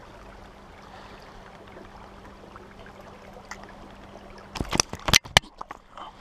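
Shallow stream running steadily over stones, then about four and a half seconds in a quick cluster of sharp knocks and slaps as a chub is handled in wet hands just above the water.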